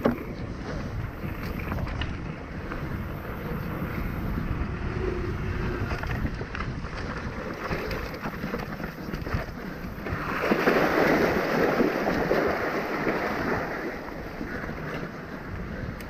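Mountain bike rolling down a dirt and rock forest trail, heard from a camera on the bike: steady tyre rumble with wind noise on the microphone and small knocks, louder for about three seconds a little past halfway.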